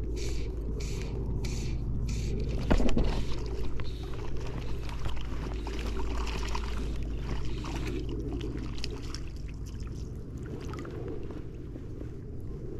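Water sloshing around the legs of an angler wading in the shallows, over a steady low rumble. In the first couple of seconds, fly line is pulled out in a run of short, evenly spaced rasps, and a single sharp knock comes about three seconds in.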